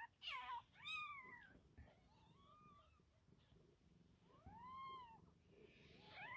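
Newborn Maine coon x elf sphynx kittens mewing: thin, high cries, each rising then falling in pitch, a handful spaced out with quiet pauses between.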